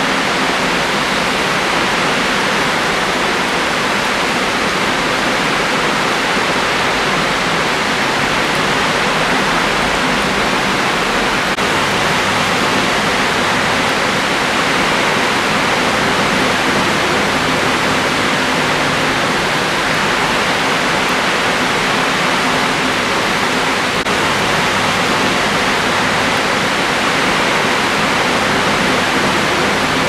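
Heavy tropical downpour: a loud, steady hiss of rain pouring down, unchanging throughout.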